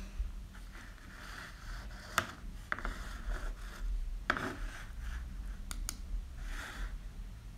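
Faint handling noise at a desk: a few sharp clicks scattered through, with soft rubbing and scraping in between.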